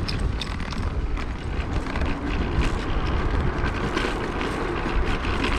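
Zero 10X electric scooter and its trailer rattling and knocking over a potholed gravel road, under a steady low rumble of riding.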